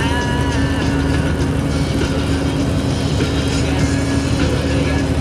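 Truck engine running steadily as it climbs, heard from inside the cab, over the steady noise of hail and rain hitting the windshield and wet tyres on the road.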